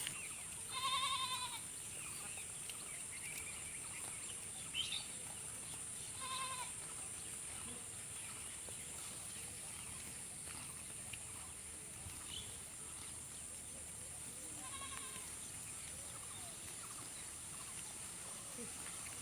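Goat bleating three times: a loud bleat near the start, another about a third of the way in, and a fainter one past the middle, over a steady high-pitched hiss.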